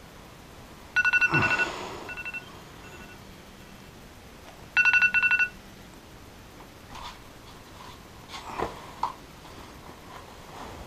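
Electronic keypad beeping: a rapid string of short beeps about a second in, two single beeps after it, and another rapid string near the middle. Faint clicks and knocks follow.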